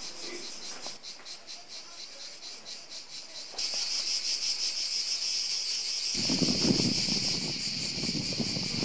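Cicadas buzzing in a dense, fast-pulsing high drone, which jumps louder about three and a half seconds in. A low rumble joins about six seconds in.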